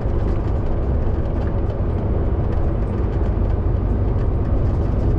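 Steady low drone of a heavy goods vehicle's diesel engine and tyre noise, heard from inside the cab while the truck runs along a motorway.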